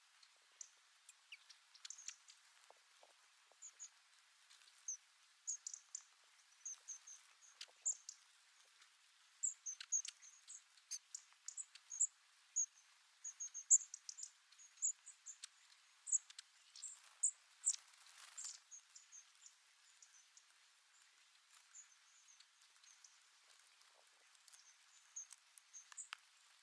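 A flock of long-tailed tits calling: many short, thin, very high-pitched notes, coming thick and fast in the middle and thinning out towards the end, with a few faint clicks.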